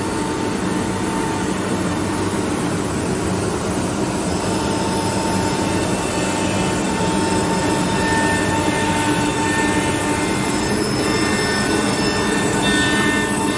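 Woodworking CNC nesting router machinery running: a loud, steady machine noise with several thin high whines that come and go.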